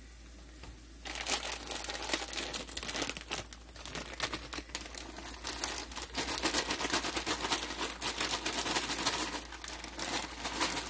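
A bag of penne pasta crinkling and rustling as it is handled, starting about a second in and going on continuously.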